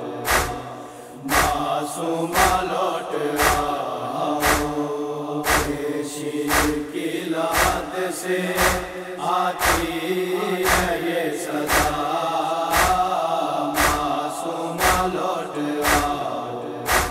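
Urdu noha chanted by male voices, kept in time by a sharp slap about once a second: matam, chest-beating in mourning.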